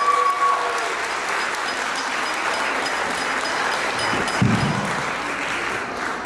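A crowd of guests applauding, an even clapping that eases a little toward the end, with a voice trailing off in the first second and a dull thump midway.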